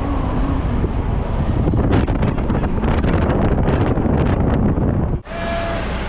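Wind buffeting a camera microphone mounted on a moving car, over road and engine noise, gusting harder after about two seconds. Near the end it cuts off abruptly and gives way to a different sound with a steady high tone.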